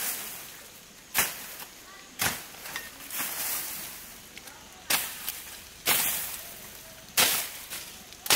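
Machete slashing through ferns and undergrowth: about six sharp cuts, roughly one a second, each a quick swishing chop.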